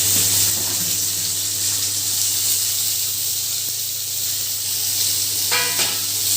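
Chopped onions frying in hot oil in a kadai with tempered mustard seeds and urad dal, a steady sizzling hiss. A steady low hum runs underneath.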